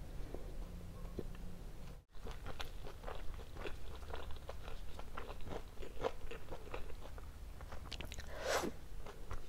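Close-up mouth sounds of chewing a soft Indian milk sweet: many small wet clicks and smacks, with one louder, longer mouth noise near the end. The sound cuts out briefly about two seconds in.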